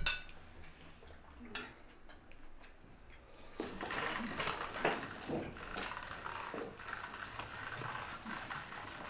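Quiet dining-room sounds: a single clink of cutlery on a plate, then faint eating sounds. About three and a half seconds in, the background gets suddenly louder into a steady room hiss with scattered faint knocks and rustles.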